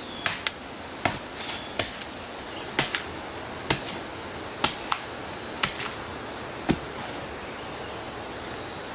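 A machete chopping into a fibrous palm stump: sharp single strikes about once a second, stopping about seven seconds in, over a steady background hiss.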